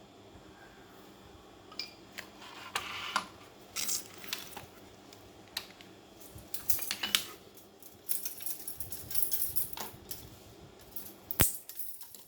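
Small metal parts and tools clinking and rattling in irregular bursts, with scattered sharp clicks; one sharp click stands out near the end.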